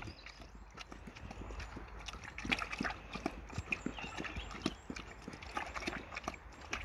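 Oxford Sandy and Black pigs making a run of short, irregular clicks and knocks.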